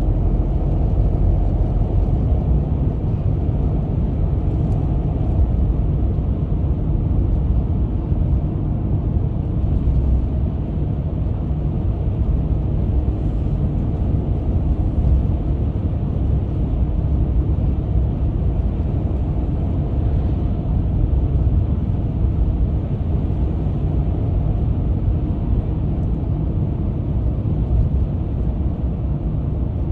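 Steady road and engine noise heard inside a moving car's cabin: a low, even rumble of the car driving at road speed.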